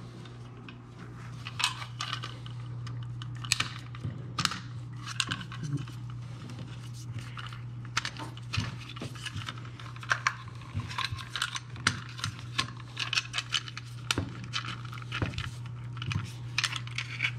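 Hands working a blue plastic old-work electrical box and 12/2 Romex cable, feeding the cable through the box: a run of light, irregular plastic clicks and rustles, over a steady low hum.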